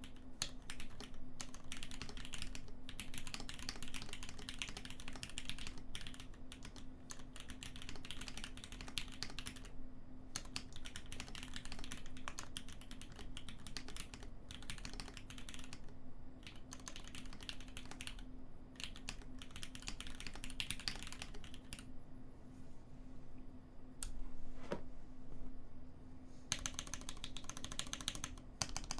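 Typing on a 4GT Sabre mechanical keyboard with lubed Cherry MX Black linear switches in a top-mounted aluminium plate and PBT keycaps, a slightly hollow, deep-toned clack. The typing comes in runs with brief pauses, the longest about two thirds of the way through.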